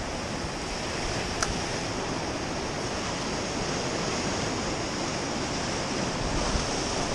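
Ocean surf breaking and washing over jetty rocks, a steady rush of waves. A single faint click about a second and a half in.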